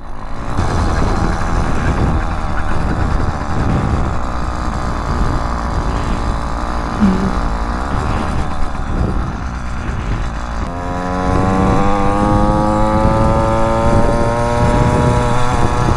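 Small two-stroke motorized-bicycle kit engine running under way. It is a rough, noisy sound at first; then, about ten seconds in, a clear engine note comes through and rises steadily in pitch to the end.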